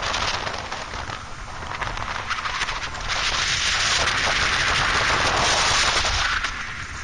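Fishing boat running at speed: wind buffeting the microphone over the hull slapping and spraying through the water. The rushing noise grows louder about three seconds in and eases just before the end.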